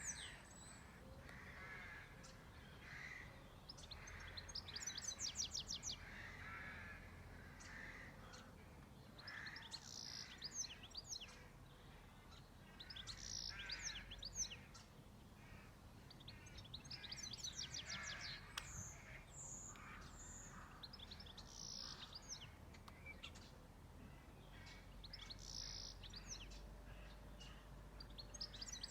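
Wild birds singing: one bird repeats a short, high, fast trilled phrase every few seconds, over softer lower calls from other birds.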